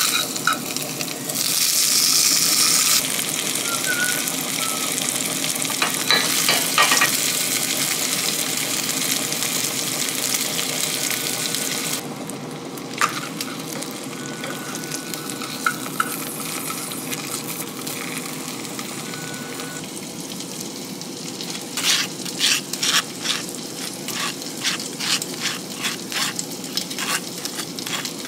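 Food sizzling and frying in a hot pan on the stove, with a surge of louder hissing about two seconds in and the sizzle settling quieter partway through. Near the end a quick run of sharp clicks sounds over the sizzle.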